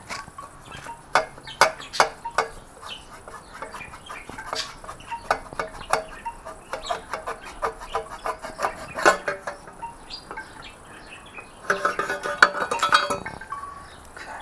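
Irregular metallic clinks and taps of hand tools working the exhaust fittings and springs off a motorcycle, with a louder scraping stretch about twelve seconds in.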